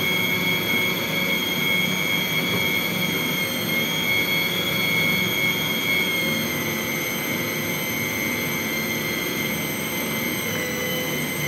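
Small electric food chopper running steadily under a hand pressing its lid, grinding a dry brown mixture in its jar, with a constant high-pitched motor whine.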